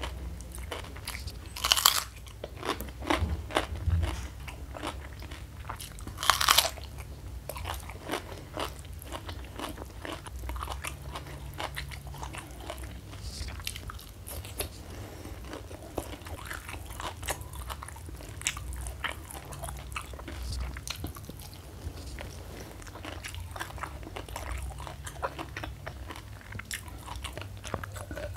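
Close-up crunchy bites into raw cucumber, two loud ones about two seconds and six seconds in, followed by steady chewing with small wet crunches.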